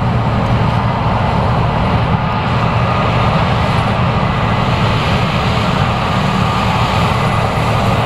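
Case IH 8230 Axial-Flow combine running under load while harvesting corn: a steady drone of the engine and threshing machinery as it heads into the standing corn.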